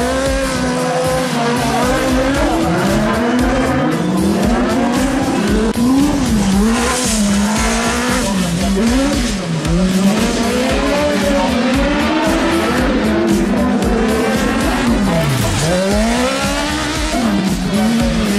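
Kart-cross buggy engines revving hard as the cars slide through a dirt corner one after another. The pitch climbs and drops again and again with throttle lifts and gear changes, over a noisy hiss, with a deep dip about fifteen seconds in.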